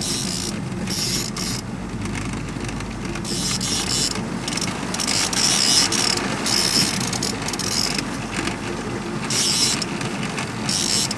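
Fishing reel being cranked in spurts while a hooked fish is played, its gears ratcheting, over the steady low hum of the boat's engine.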